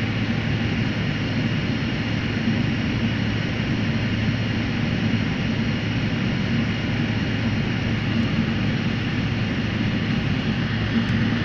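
Jet airliner cabin noise while taxiing after landing: the engines run steadily at low power, a constant low hum under an even rush of noise.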